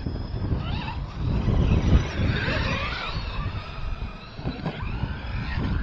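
Battery-powered RC trucks' electric motors whining, the pitch rising and falling as they accelerate and slow, over a low rumble.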